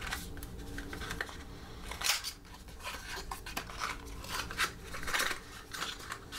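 Small cardboard box handled and opened by hand: scattered short scrapes and rustles of cardboard sliding against cardboard.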